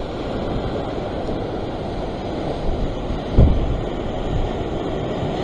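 Ocean surf washing and breaking against a rock ledge, with wind rumbling on the microphone. A short low thump about three and a half seconds in.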